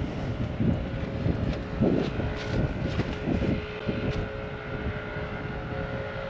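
A steady distant engine drone with wind rumbling on the microphone. A few short thuds fall between about two and four seconds in.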